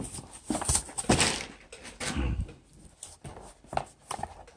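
Cardboard packaging being handled and opened by hand: a run of irregular scrapes, rustles and light knocks, with a duller knock a little past two seconds in, then quieter handling.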